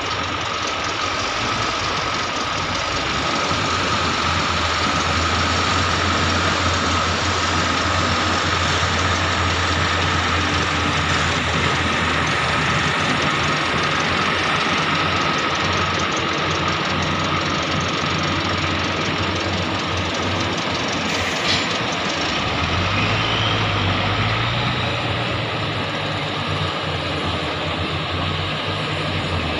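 XCMG XE370CA crawler excavator's diesel engine running under working load, a steady low drone with a steady high whine over it. About three-quarters of the way through, the engine note climbs and wavers as the machine works harder.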